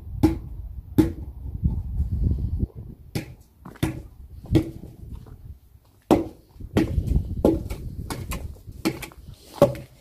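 Irregular sharp wooden knocks and thuds as old wooden logs are shifted and knocked into place on a bed of broken brick.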